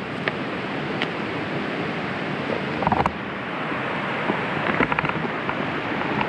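Steady rushing noise of wind and rain outdoors, with a few sharp clicks and crackles scattered through it.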